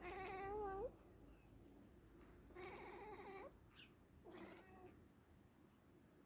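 Domestic cat making three wavering, warbling calls at the sight of a bird as prey: the loudest right at the start, a fast-trilling one in the middle and a short one a little later.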